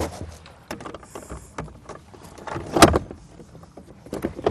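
A plastic boat seat is slid onto its metal seat-base bracket, giving small scrapes and clicks, with one louder clack a little under three seconds in as it goes on.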